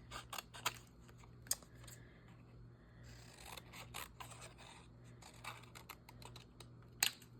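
Scissors snipping through magazine paper in short, irregular cuts, with a sharper click about a second and a half in and another near the end.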